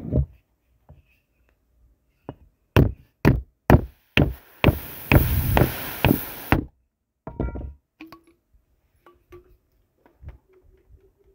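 A run of sharp knocks and thumps from objects handled right next to the microphone, with a hiss of about two seconds in the middle and a few scattered knocks after it.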